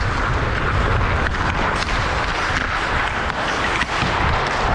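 Ice hockey play: continuous rink noise with a heavy low rumble, broken by several sharp clacks of sticks, puck or skates.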